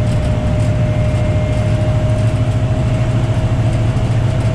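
Diesel train engine running steadily, heard from the front of the train: a continuous low drone with a thin steady whine above it.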